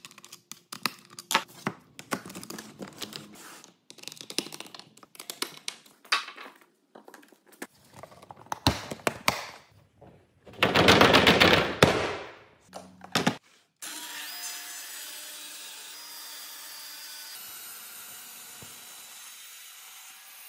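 Plastic and metal clicks and knocks as a Festool Gecko suction adapter is screwed to and handled on an aluminium guide rail, with a loud rushing burst lasting about two seconds about ten seconds in. From about fourteen seconds in, a steady machine run with a faint high whine.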